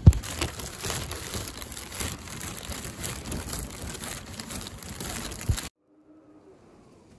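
Plastic bags rustling and crinkling close to the microphone as they are handled, with a sharp knock just after the start and another near the end of the rustling. The rustling cuts off suddenly, leaving near silence.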